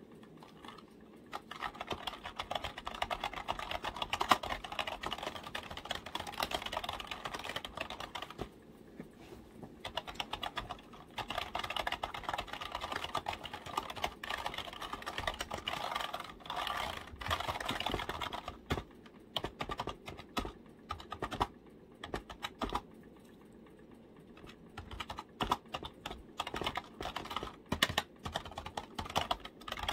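Fast typing on a computer keyboard: runs of rapid key clicks, broken by two short pauses.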